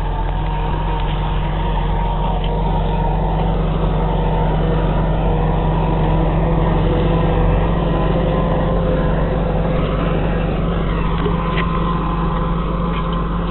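New Holland TS110 tractor's engine running steadily while working a Kuhn rotary tedder, a constant drone with a faint steady whine above it, slightly louder around the middle.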